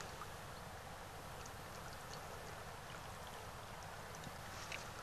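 Faint, steady flow of a shallow freestone stream, with a few small splashes and drips of water, a little cluster of them near the end.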